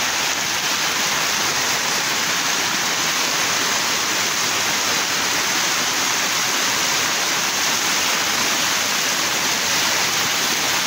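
Heavy rain pouring down in a dense, steady hiss, pattering close overhead on the umbrella.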